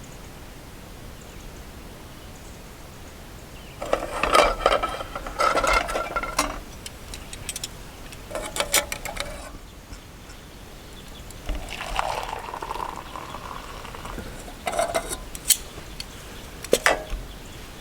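Camp cookware and utensils clinking and clattering in four short bouts of handling, as breakfast is made.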